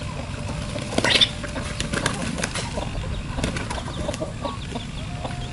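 Domestic ducks and chickens flapping their wings in short bursts, the loudest about a second in, over a steady low noise.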